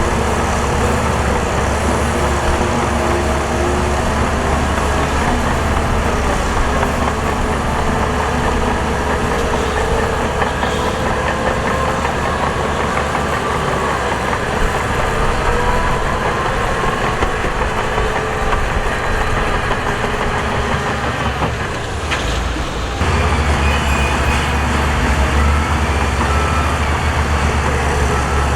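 Heavy diesel construction machinery running steadily, with a deep low hum and engine tones drifting up and down in pitch. The sound dips briefly and changes character about three-quarters of the way through.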